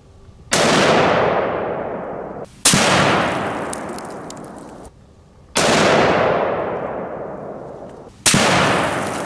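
.30-06 bolt-action rifle (Ruger American, 180-grain loads) firing four shots, each a sharp report that dies away over about two seconds.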